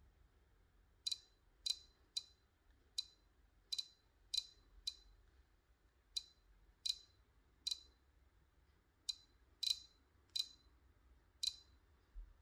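Light, sharp clicks at an uneven pace, about fifteen in all, as settings are tapped through on the DJI Pocket 3's touchscreen.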